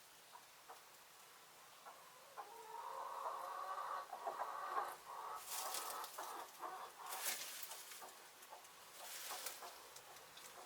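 Domestic hens clucking softly, with one drawn-out call from about two and a half to five seconds in. Short rustles follow, about three times.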